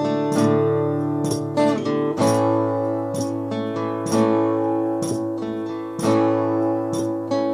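Acoustic guitar strummed, full chords ringing out with roughly one strum a second; the chord changes a little over two seconds in.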